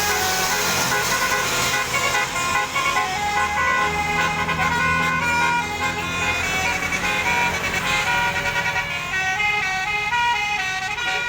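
Multi-tone 'telolet basuri' bus air horn playing a fast melody of short, stepped notes, with the bus engine running underneath.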